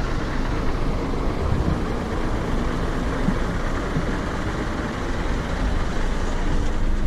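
Steady low engine rumble and road noise of a motor vehicle running.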